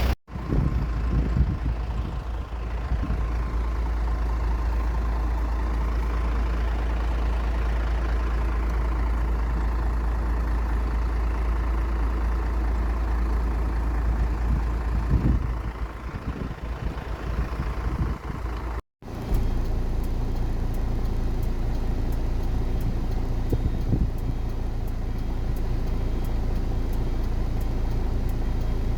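Steady low rumble of an aircraft engine running, broken by a brief dropout just after the start and a moment of silence about two-thirds of the way through.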